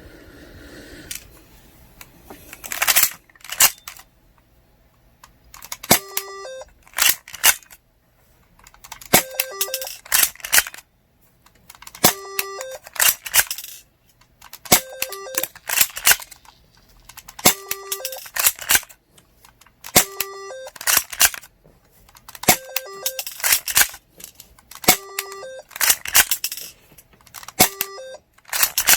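Toy airsoft pistol being worked and fired over and over: a cluster of sharp clicks and snaps about every two and a half to three seconds, some with a brief ringing note.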